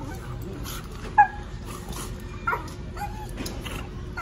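Young Rottweilers play-fighting, giving a few short yips and whines; the loudest, sharpest yip comes about a second in.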